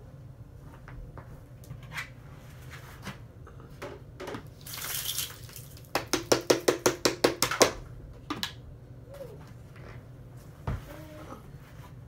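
A vacuum cleaner's clear plastic dust bin being emptied into a plastic tub: a short rush of debris pouring out about five seconds in, then a quick run of about a dozen sharp rattling knocks, some seven a second, as the bin is shaken out. Scattered small knocks from handling the plastic come before and after.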